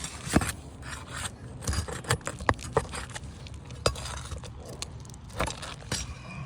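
Asphalt roof shingles scraping and rustling while a tool works the last nail loose from under them, with sharp clicks and knocks of metal on the shingles and nail.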